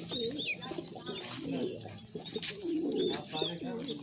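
Domestic pigeons cooing, a run of low warbling coos, with short high chirps from other birds over them.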